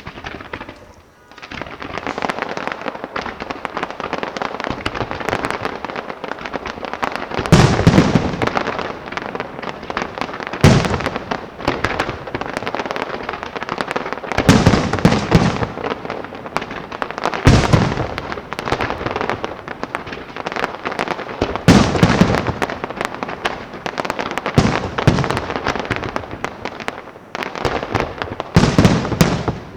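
Fireworks display: a dense, steady crackle of bursting shells that starts about a second in, with about seven heavy booms spaced a few seconds apart over the later part.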